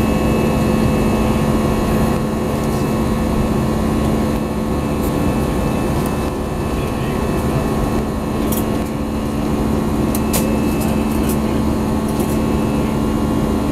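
Steady cabin drone of an Airbus A320 in climb, heard from a window seat beside its CFM56 turbofan engine: engine noise and airflow, with several steady engine tones held through it. A few light ticks come about two-thirds of the way in.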